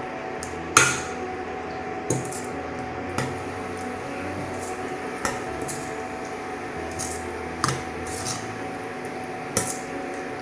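A spoon stirring thick chicken gravy in a pan, knocking and scraping against the pan every second or two, the loudest knock about a second in.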